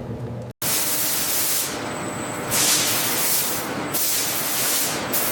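A low machine hum cuts off about half a second in. It is followed by a steady spray hiss that comes in several brighter spurts starting and stopping.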